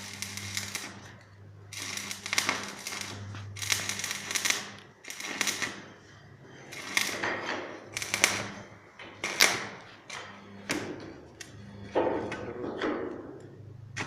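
Electric arc welder crackling and hissing in repeated short bursts of about a second each as the arc is struck again and again, with a low transformer hum that comes and goes.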